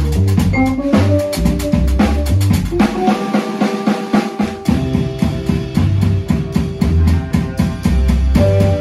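Live instrumental music: a vibraphone struck with mallets and keyboards over a driving beat of fast drum-like hits and a deep bass line. The bass drops out for about a second and a half about three seconds in, then returns.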